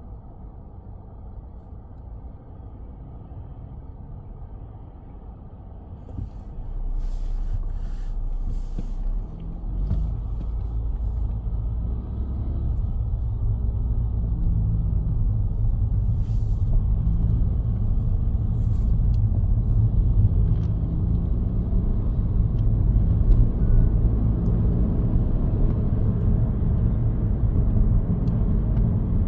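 A car driving, with low road and engine rumble that grows clearly louder from about six seconds in as it picks up speed, and a few faint ticks and knocks.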